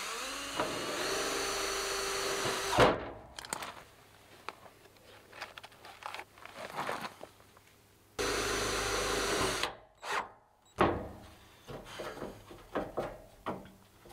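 Cordless drill running in two long bursts, the first for about three seconds and ending in a sharp knock, the second about eight seconds in; knocks and clicks of handling between and after.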